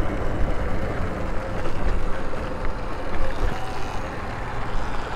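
Wind rushing over the microphone and rumble of riding at speed, with a faint steady whine.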